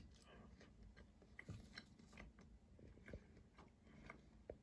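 Faint chewing of a piece of dense home-baked rye bread: a few soft crunches and small clicks.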